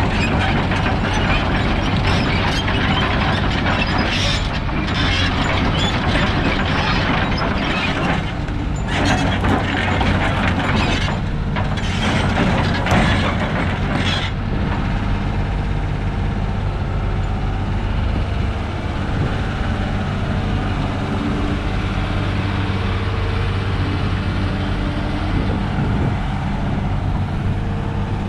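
Doosan DX225LCB hydraulic excavator's diesel engine running steadily, with irregular mechanical clattering and rattling through roughly the first half, then a smoother, steady running sound.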